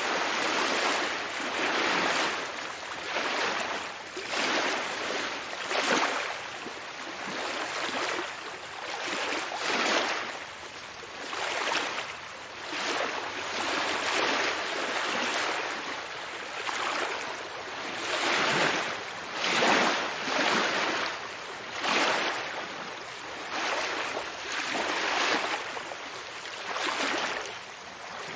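Ocean water washing and lapping, swelling and ebbing every second or two.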